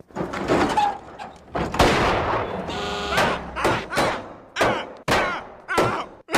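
A series of about eight or nine loud gunshots, spaced roughly half a second to a second apart, each with a short echoing tail.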